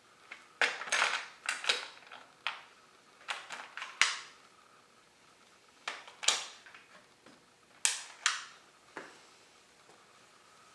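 Small metal hardware (washers, nuts and bolts) clinking and clattering as it is handled, in a dozen or so irregular sharp clicks with a short metallic ring, the loudest about four seconds in.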